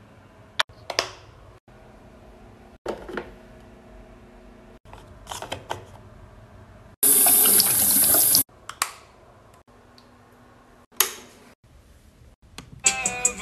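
A quick run of short bathroom-routine sounds: toner pouring onto a cotton pad, clicks and taps of caps and small containers, and about seven seconds in a loud, even rush of running water lasting about a second and a half. A brief tone sounds near the end.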